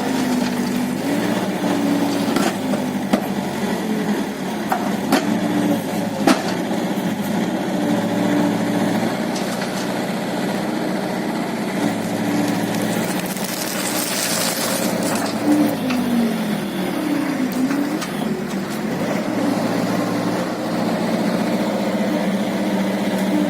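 Mini loader (skid-steer) engine running, its pitch dipping and rising several times as the machine works the grapple bucket. A few sharp knocks come in the first six seconds, and there is a brief hiss about two-thirds of the way through.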